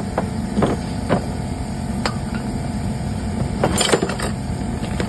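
Short metallic clicks and taps of brake pads and clips being worked into a disc brake caliper bracket, several scattered and a small cluster near the end, over a steady low rumble.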